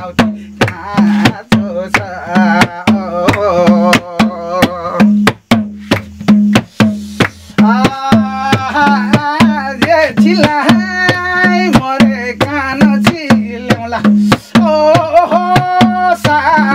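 Madal hand drum beaten in a steady, even rhythm with hand claps, under a man singing a Nepali salaijo folk song in long, wavering held notes.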